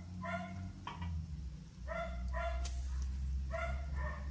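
A dog barking in short pairs, about five barks, over a steady low rumble.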